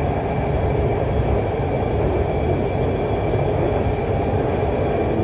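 Lahore Orange Line metro train heard from inside its car while running: a steady rumble of the wheels on the track, with a faint, steady high whine over it.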